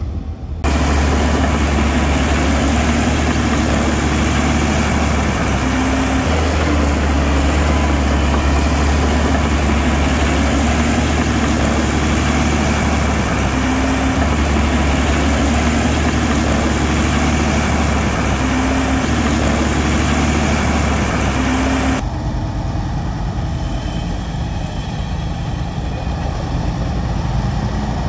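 Heavy diesel engine of earthmoving machinery running steadily with a deep, even drone. The sound jumps louder just under a second in and changes abruptly about three-quarters of the way through, where a quieter, thinner engine sound takes over.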